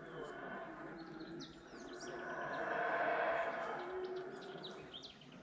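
Howler monkeys roaring, a hoarse chorus that swells to a peak about halfway through and then fades, with birds chirping over it.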